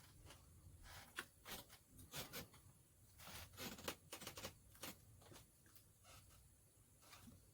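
Light clicks, taps and short scrapes of small hand tools against a phone's housing and glass during a screen repair. The noises come in a busy cluster from about one to five seconds in, then thin out.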